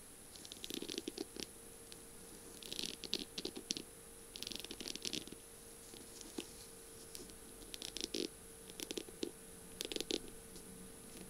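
Long fingernails tapping and scratching on a feather pen's beaded, rhinestone-studded barrel, in several short bursts of quick clicks with pauses between.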